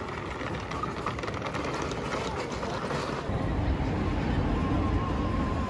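Busy shopping-street ambience: crowd chatter and footsteps, with a low rumble that grows louder about three seconds in.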